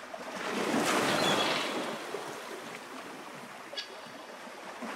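Waves washing in, a surge swelling about a second in and then easing to a steady wash.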